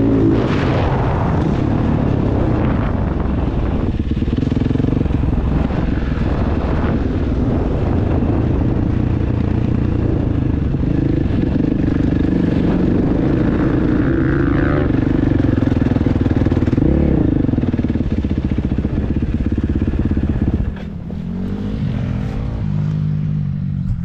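Motocross bike engine running hard, its pitch rising and falling as the throttle opens and closes. Near the end the engine eases off to a lower, quieter note.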